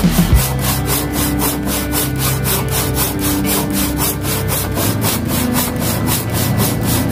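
A Tjap Mata hand saw cutting through wood in quick, even strokes, about four or five rasps a second.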